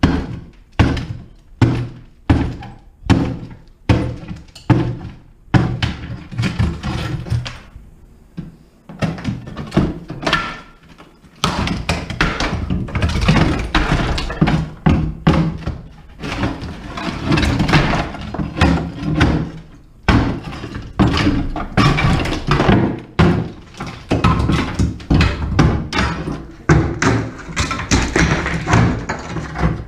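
Steel pry bar being driven into a wooden floor and prying off ceramic tile and glued-down hardwood: repeated sharp thunks about one or two a second, with cracking and crunching of breaking tile. After a short lull, about halfway through, the blows run closer together into a denser stretch of knocking and crunching.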